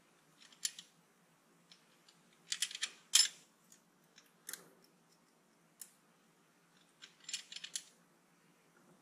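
Ring spanner and screwdriver clicking and clinking on the rocker-arm adjusters of a Land Rover Series III 2.25-litre diesel while the valve clearances are set. The clicks come in short irregular clusters, the loudest a quick run about three seconds in.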